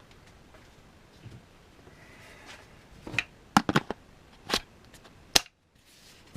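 A quick series of sharp clicks and knocks, about six in all in the second half, as the mini circular saw's plastic body and controls are handled; the motor is not running.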